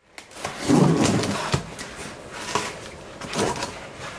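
Rustling and a few sharp light knocks as objects are handled on a tabletop, loudest in the first second and a half.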